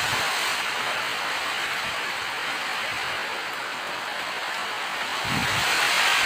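Steady rain falling, an even hiss with no break. Near the end a low rumble comes in beneath it.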